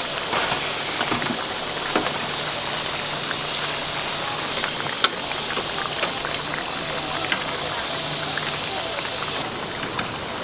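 Hot oil sizzling steadily with many small crackles as battered food deep-fries, with one sharp click about halfway through. The sizzle eases near the end.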